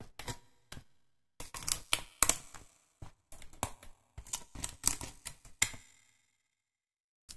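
A small 3D puzzle piece being pressed out of its punched sheet: irregular snapping and crackling as the cut tabs give way, in quick clusters that stop about six seconds in.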